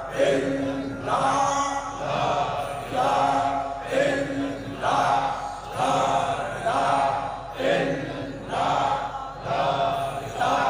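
Large crowd of men chanting together, repeating a short devotional phrase about once a second in a steady rhythm.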